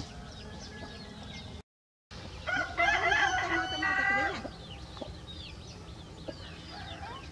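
Rooster crowing once, a long call of about two seconds that starts about two and a half seconds in, with high, short bird chirps throughout. The sound drops out for half a second just before the crow.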